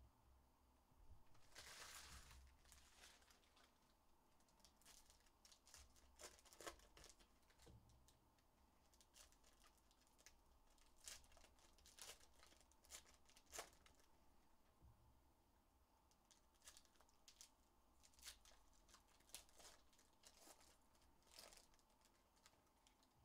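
Faint crinkling and tearing of foil trading-card pack wrappers (2023-24 Panini Prizm hobby packs) being opened by hand, with scattered light clicks from cards being handled. The longest stretch of crinkling comes about two seconds in.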